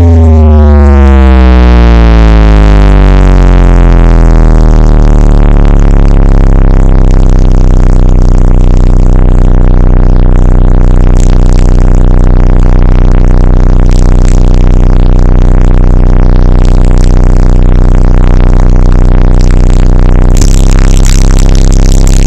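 Car audio subwoofers pushed to extreme volume to try to shatter the car's window glass: a low bass tone falls in pitch over the first few seconds, then holds steady and very loud. About twenty seconds in, a hiss joins it.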